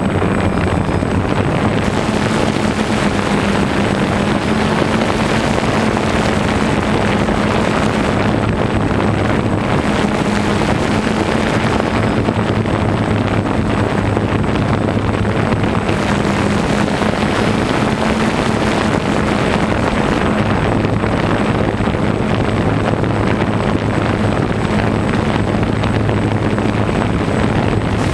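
DJI Phantom 1 quadcopter's four electric motors and propellers buzzing steadily in flight, heard up close from on board, with a low hum that shifts slightly in pitch now and then.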